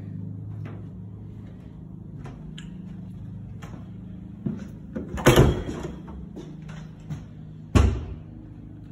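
Closet doors being opened and closed, with two sharp knocks, one about halfway through and one near the end, and a few fainter clicks around them. A steady low hum runs underneath.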